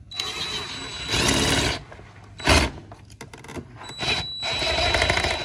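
Impact driver with a long socket extension running in the fuel-tank bolts of an ATV: a whirring run with a thin high whine in the first two seconds, a short loud burst about two and a half seconds in, then a second run near the end.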